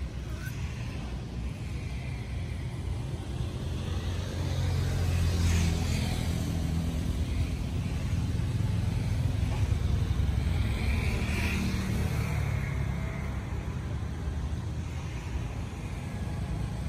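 Low rumble of a motor vehicle, growing louder about four seconds in and easing off after about twelve seconds.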